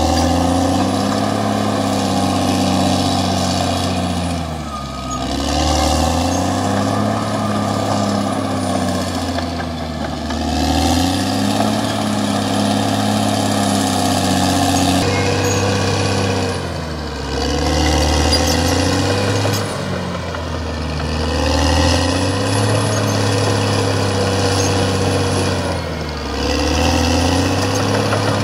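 CAT D6R XL bulldozer's diesel engine working hard. Its note sags and recovers every few seconds as the load comes on and eases off, with a faint high whine above it.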